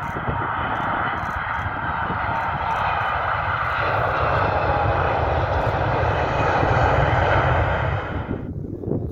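Jet engines of a landing Boeing 747: a steady loud roar as it touches down and rolls along the runway, growing louder and brighter about four seconds in, then cutting off sharply near the end. A low rumble of wind buffets the microphone underneath.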